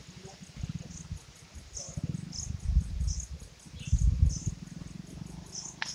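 Insects chirping in the grass, short high chirps repeating about once or twice a second over a fainter fast pulsing. Low rumbling on the microphone swells twice in the middle and is the loudest sound, and a sharp click comes near the end.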